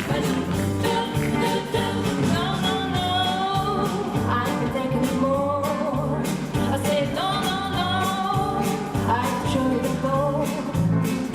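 Pop music with a sung vocal line over a steady beat.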